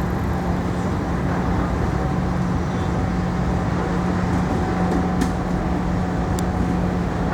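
Steady city street traffic noise with a constant low hum, and a few faint high ticks near the end.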